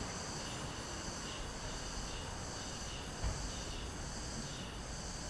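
Cicadas buzzing in a pulsing song, high-pitched and swelling about one and a half times a second, over the even hum of the street. There is a single low thump a little after three seconds in.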